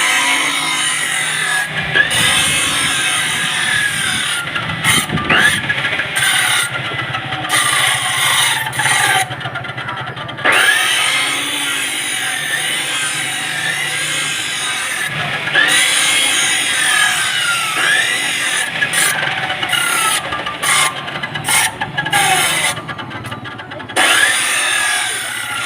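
Electric power tool working through material, its whine repeatedly dipping and climbing again as it bites and frees up, over a steady motor hum.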